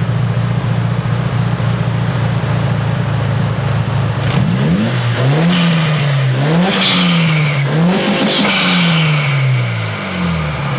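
Mitsubishi Lancer Evolution VIII's turbocharged four-cylinder engine idling steadily, then revved a few times with the throttle, its pitch rising and falling, with a rushing hiss at the top of the bigger revs. Near the end it drops back to idle.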